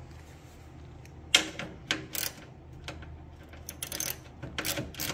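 Hand ratchet clicking in short irregular runs as a bolt on a car's radiator mounting bracket is worked, with sharp clinks of metal on metal starting about a second and a half in.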